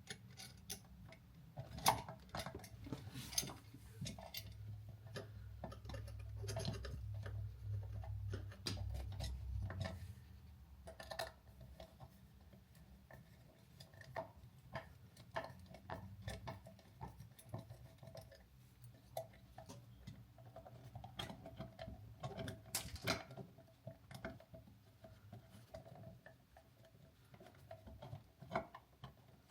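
Small irregular clicks and ticks of a screwdriver and hands tightening the mounting screws of a new electrical outlet into its wall box, with a low rubbing rumble from about four to ten seconds in.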